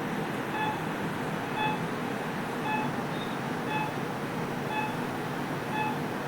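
Operating-room patient monitor beeping at the pulse, a short tone about once a second, over a steady background hiss of room equipment.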